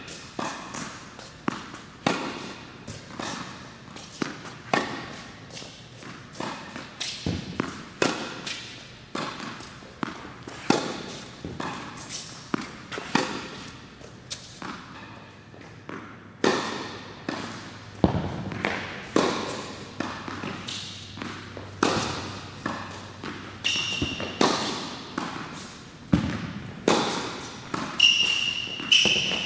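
Tennis balls struck by a racket and bouncing on an indoor hard court during a rally: a steady run of sharp hits and bounces, each ringing briefly in the large hall. A few short high squeaks near the end.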